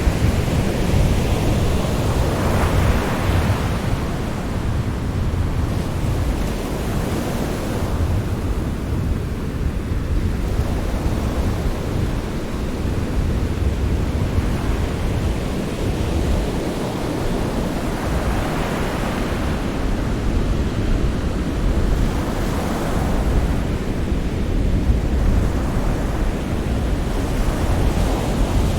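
Sea surf: a continuous wash of waves over a deep rumble, swelling every several seconds as waves break.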